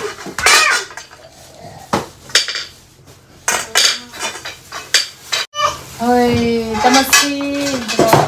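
Clothes-rack tubes clinking and knocking against each other as they are handled and tapped, a string of separate sharp clatters. A voice calls out briefly about six seconds in.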